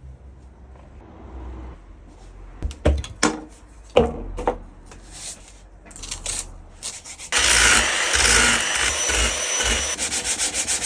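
Hand repair work on a surfboard's fin box: scattered scraping, rubbing and a few sharp knocks. About seven seconds in, a loud steady rushing noise with a faint high whine starts, like a small power tool running on the board.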